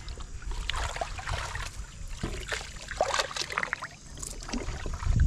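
Water splashing and sloshing in irregular little bursts as koi and goldfish thrash about in a shallow plastic tub, over a low rumble.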